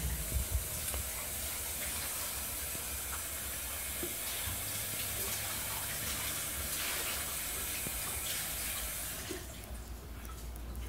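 Kitchen tap running in a steady stream, then turned off about nine seconds in.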